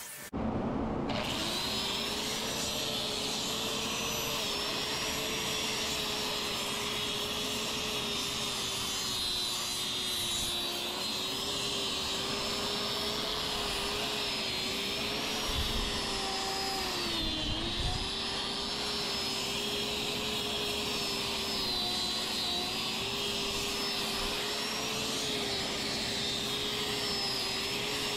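Angle grinder fitted with a sanding disc switching on and running steadily while power-sanding a spalted wood workpiece. Its pitch sags briefly about two-thirds of the way through as it is pressed into the wood.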